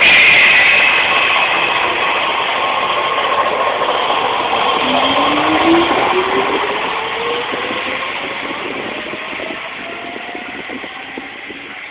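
Electric train pulling away, its traction motors giving a smooth rising whine as it picks up speed over a loud rumble of wheels and running gear. The rumble slowly fades as the train draws off.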